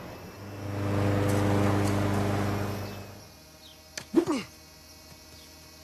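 Cartoon drone's buzzing motor hum, swelling and then fading out after about three seconds. About four seconds in comes a sharp crack, followed by a short voice-like cry.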